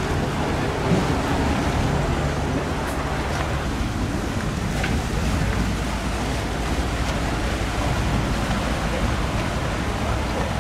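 Steady waterside ambience of boat traffic on a canal: motorboat and water-bus engines running, water washing, and people's voices in the background.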